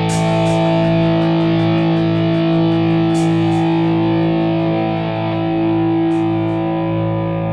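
Background music with distorted electric guitar holding steady chords over a quick, even ticking beat that drops out about four seconds in.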